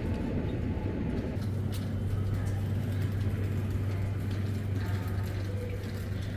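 Steady low engine hum that comes up about a second and a half in, over background noise with a few faint clicks and knocks.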